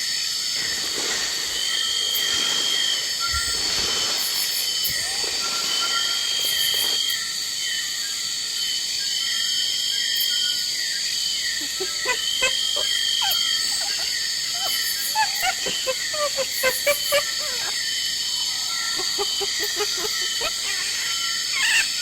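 Dense insect chorus: a steady high buzzing with several repeating chirp trains, one pulsing about every second and a half. From about twelve seconds in, quick, separate chirping calls at a lower pitch join it.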